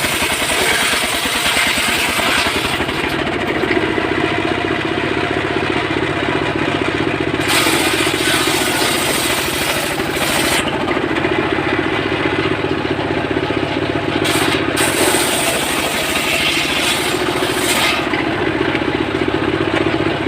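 A small engine on a wood saw running steadily at a fairly constant speed, with a few stretches where a hissing noise is added on top.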